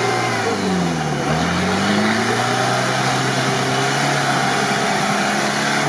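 UAZ off-roader on BTR armoured-carrier tyres pushing through deep mud. Its engine drops in revs about a second in, then climbs and holds steady under load over a dense rush of churning tyres and mud.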